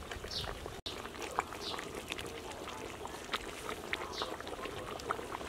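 Soup being ladled from a metal pot into a ceramic bowl: soft pours and scattered light clicks of the metal ladle, with short high chirps recurring about once a second in the background.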